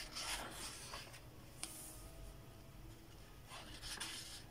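Thin newsprint pages of a thick Shonen Jump manga magazine being turned by hand: two soft paper rustles, one right at the start and another about three and a half seconds in.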